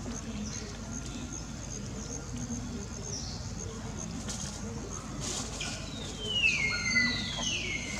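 Two loud high-pitched animal calls, each sliding downward in pitch, about six and seven seconds in, over a steady outdoor background with faint, evenly repeated high chirps.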